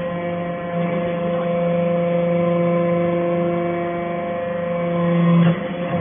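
Hydraulic pump of a vertical scrap baler running with a steady whining hum that grows louder under the pressing load, then drops abruptly about five and a half seconds in as the load comes off.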